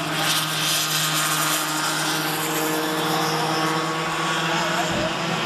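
Several Cadet 9 racing go-karts' small two-stroke engines buzzing steadily at speed as the pack passes, several engine notes overlapping.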